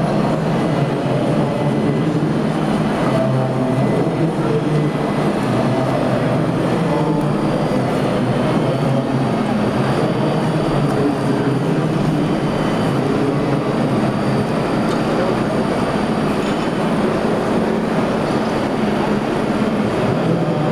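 Steady, loud din of a busy exhibition hall: a dense, even rumble of crowd and machinery with faint steady tones in it and no single event standing out.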